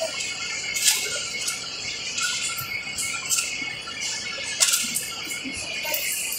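Busy shop-counter ambience: a hissy hubbub with scattered clicks and rustles of items being handled at the till, and two sharper crackles, one about a second in and one just before five seconds.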